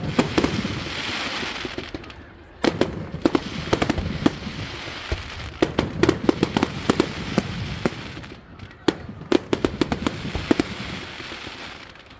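Fireworks going off: rapid volleys of sharp bangs and crackles in several bursts, with a hissing crackle between the volleys.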